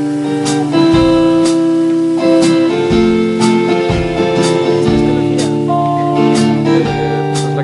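Band playing the instrumental intro of a song live, led by guitar: held chords that change every second or so, with a short sharp stroke about once a second.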